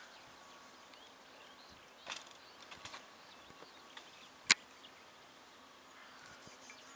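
Faint outdoor background with a few brief scuffing rustles, and one sharp, loud click about four and a half seconds in.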